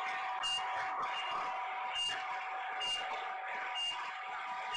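Cath-lab heart monitor beeping once per heartbeat, a short high beep about every 0.8 s, matching a heart rate of about 80. Under it runs a steady electrical hum and the hiss of old analogue tape.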